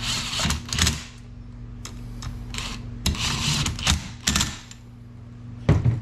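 Bolts on a small engine's cover being run down with a ratcheting driver: three short bursts of rapid ratchet clicking, the last one sharpest.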